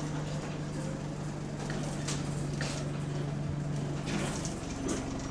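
Bus engine running, heard from inside the bus, which has an exhaust leak. It makes a steady low drone that shifts to a higher hum about four seconds in, with a few short hisses.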